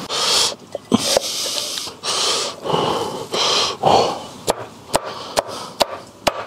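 Meat cleaver chopping a stewed pork knuckle on a wooden cutting board: a run of sharp knocks, about two a second, starting a little past halfway. Before the knocks come several breathy hissing bursts.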